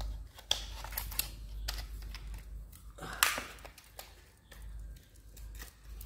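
Sandpaper being handled and pressed onto the pad of an orbital sander: scattered clicks and paper rustling, with a louder rustle or scrape about three seconds in.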